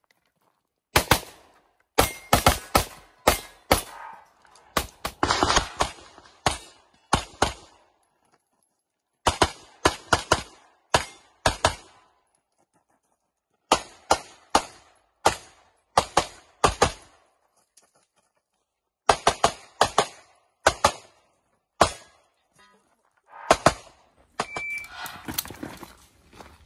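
Pistol shots fired in quick pairs and short rapid strings, with pauses of a second or two between strings.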